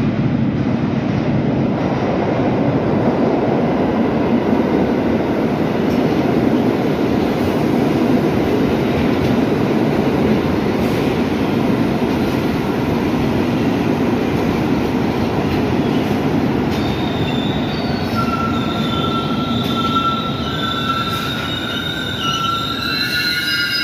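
Subway train running along the track with a steady, loud rumble. About two-thirds of the way through, high-pitched wheel squeal sets in with several tones and keeps going.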